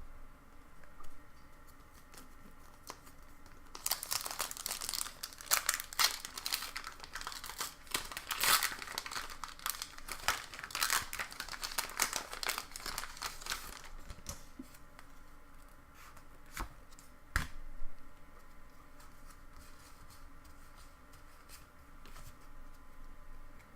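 Foil Pokémon booster pack wrapper being crinkled and torn open: a dense run of crackling from about four seconds in until about fourteen seconds, followed by a few isolated clicks.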